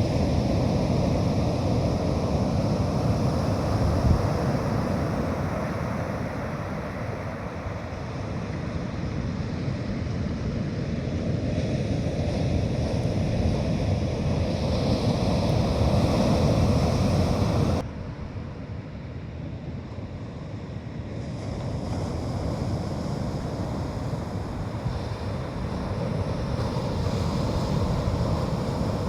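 Sea surf washing on a beach with wind on the microphone, a steady rush that swells and eases, dropping suddenly to a quieter rush about two-thirds of the way through.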